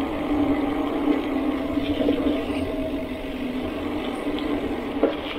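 A steady low mechanical hum that dips slightly in pitch partway through, over a rushing background, with one sharp click near the end.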